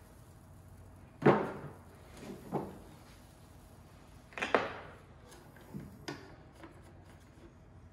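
A few sharp clunks and knocks from a rectangular metal can being handled and its cap worked open, the loudest about a second in.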